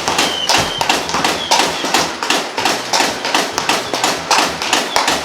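Nerf Mega Mastodon motorized blaster firing full-auto, a rapid, even stream of knocks about three to four a second as Mega darts are launched and strike the camera.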